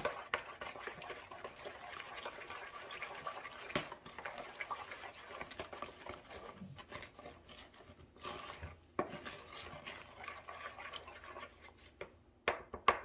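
A plastic spoon stirring liquid pancake batter of milk, egg and melted butter in a mixing bowl: a steady soft swishing and scraping, with scattered sharper knocks of the spoon against the bowl, the loudest near the end.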